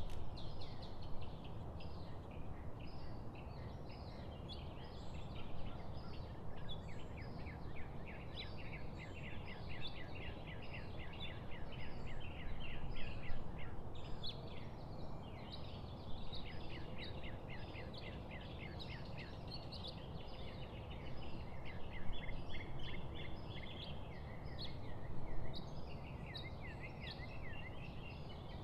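Several small birds singing, with dense runs of quick, high chirping notes that overlap throughout, over a steady low background rumble.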